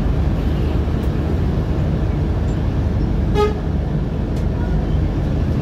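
Steady low rumble of a Scania articulated bus driving, heard from inside the cabin. A single short horn toot sounds about three and a half seconds in.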